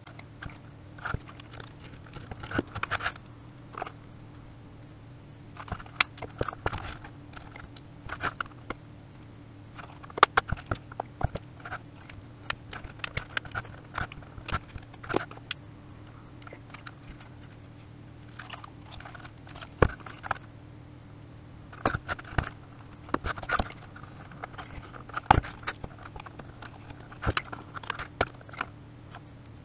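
Irregular plastic clicks, crunches and scrapes as the plastic housing of a Siemens VDO BSM fuse box is pried and scraped apart with a metal pick and screwdriver. A steady low hum runs underneath.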